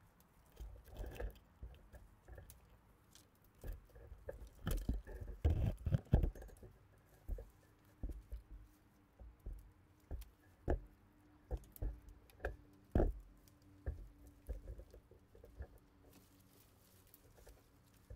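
Rustling, scraping and knocking of conifer branches and bark as a climber works down the tree, with the camera rubbing and bumping against twigs and trunk: irregular clicks and thumps, busiest about five to six seconds in. A faint steady hum sits underneath from about seven seconds in.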